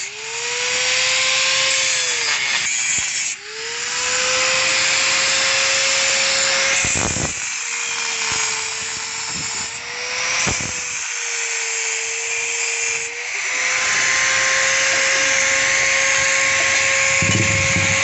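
Electric angle grinder whining as its disc cuts into a rusty steel motorcycle exhaust pipe. The motor drops out briefly about three seconds in and spins back up, and its pitch sags for several seconds in the middle under load before rising again.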